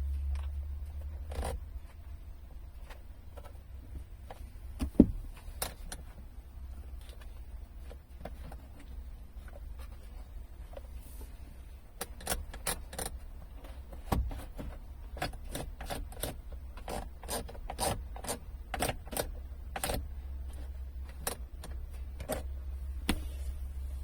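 Sharp clicks and taps of parts being handled, coming about two a second in the second half, with a single loud knock about five seconds in, over a steady low hum.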